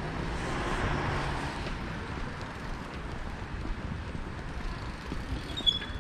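Street traffic: a car passing on the road, its tyre and engine noise swelling and then fading over the first two seconds, followed by a low steady traffic hum. A brief high-pitched squeak comes near the end.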